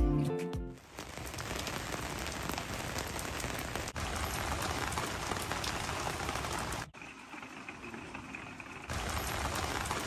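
Steady rain falling, heard in a few short clips joined by sudden cuts; one stretch a little past the middle is quieter and duller. A guitar tune fades out in the first second.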